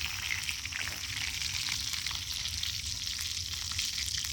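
Pieces of fresh fish breaded in wheat flour frying in hot lard, sizzling steadily with small crackles and pops.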